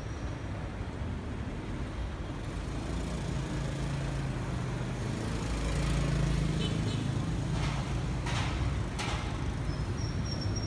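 Street traffic of motorbikes and a bus, engines running with a low hum that swells through the middle. Near the end come a few brief noise bursts, then a thin high whine.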